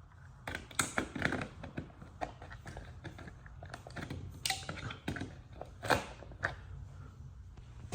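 Irregular clicks, taps and knocks of hands handling hardware, with a few sharper knocks standing out: about a second in and again around six seconds.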